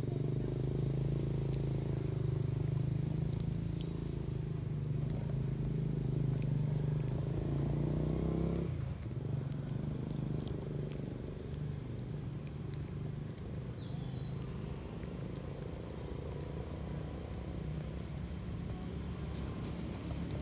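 An engine running steadily, a low hum that is louder at first and drops away sharply about nine seconds in, then continues more faintly. Faint scattered small clicks on top.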